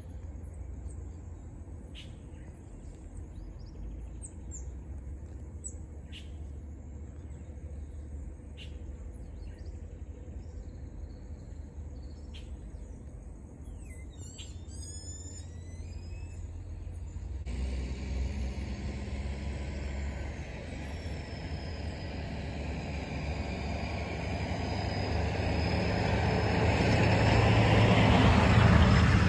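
Birds chirp briefly every couple of seconds, then give a quick run of sweeping notes about halfway through. After that a motor vehicle's noise swells steadily, with a slowly falling whine over it, and becomes the loudest sound near the end.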